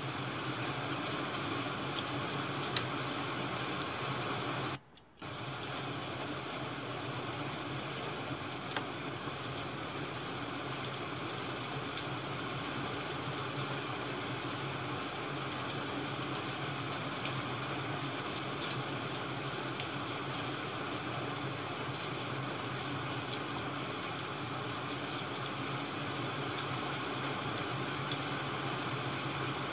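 Ambience track of a wood fire crackling and rain falling: a steady hiss with sparse sharp crackles, cutting out for a moment about five seconds in.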